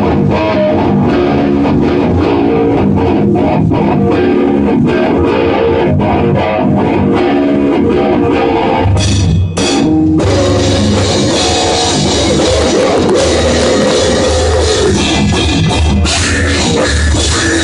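A band playing heavy rock: electric guitar riffing over a drum kit. About nine and a half seconds in the band stops for a moment, then comes back in with a much heavier low end.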